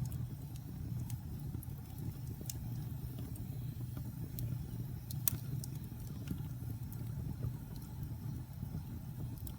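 Log fire crackling in a fireplace: a steady low rumble of burning wood with scattered sharp pops and snaps, the loudest pop about five seconds in.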